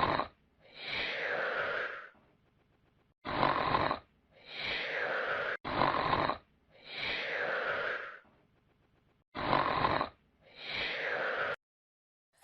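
Cartoon-style snoring sound effect: four snore cycles, each a short rasping inhale followed by a longer, softer, falling exhale. It stops suddenly near the end.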